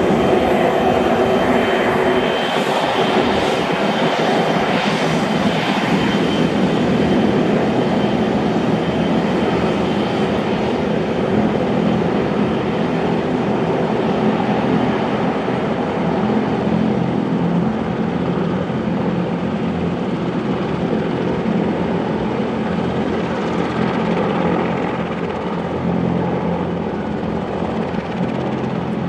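Helicopter turbine engine and rotors running on the ground at idle: a steady, loud mix of engine whine and rotor noise. A thin high whine sits on top for the first several seconds and then fades.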